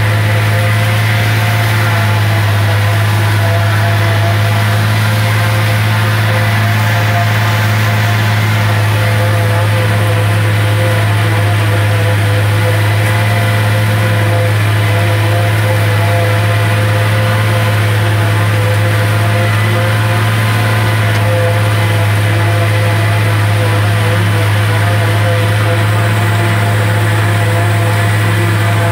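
International 1256 tractor's diesel engine working steadily under load, driving a New Holland 790 forage harvester with an 822 corn head as it chops standing corn. It makes a loud, even drone with a constant hum from the chopper, and the pitch does not change.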